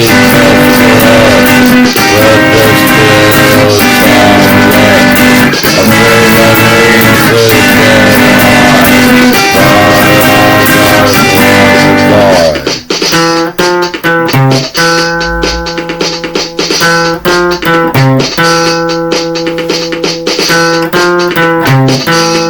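Instrumental music led by guitar: a loud, dense full-band passage with drums, which about halfway through drops suddenly to a sparser section of separate picked guitar notes.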